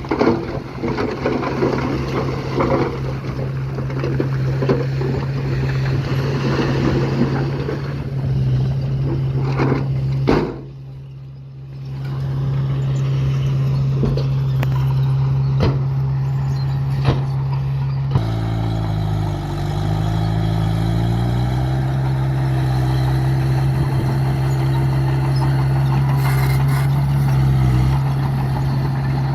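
Heavy diesel construction machinery running with a steady low engine note and scattered knocks. The sound drops briefly near the middle, then the engine note changes and its pitch dips and rises again.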